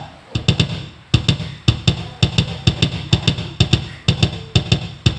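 Electronic drum sounds playing a steady beat: low kick thumps, snare hits and bright cymbal or hi-hat hits, several a second, with a brief pause just after the start.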